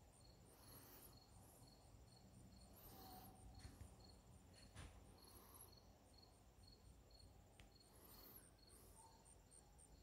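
Faint insect chirping in an even, steady rhythm over near silence.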